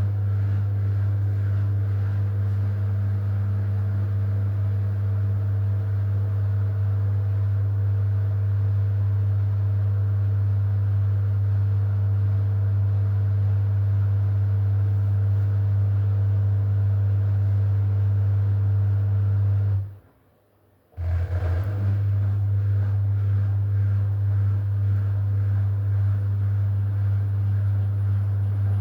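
AEG washing machine running with a steady low hum and a few fainter steady tones above it; the sound cuts out abruptly about two-thirds of the way through, then resumes a second later.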